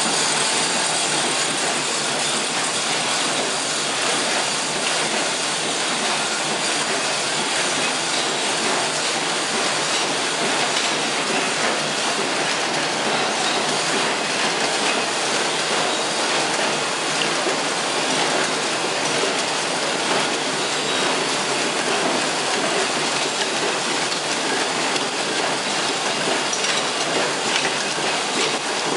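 Sewing machine running continuously, a steady mechanical clatter that does not change in speed.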